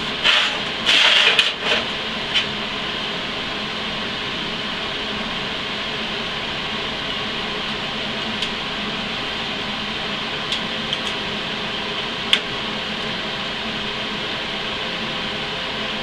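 Steady background hum, with a few brief scrapes of steel square tubing being moved into place in the first two seconds and a handful of light clicks and taps later.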